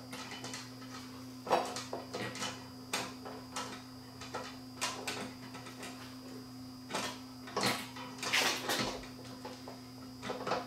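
Small irregular clicks and scrapes of screws being threaded by hand into the cooling fan's mounting on the amplifier's metal rear panel, with a busier run of scraping near the end, over a faint steady hum.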